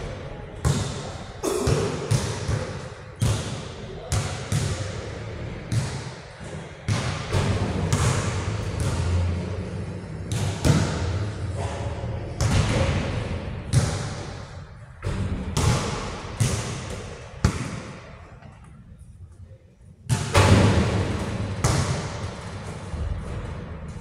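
Basketballs bouncing on a hard court floor, a steady run of thuds about once a second, each ringing out in the echo of a large hall. A short lull of a couple of seconds comes near the end, then the bouncing starts again.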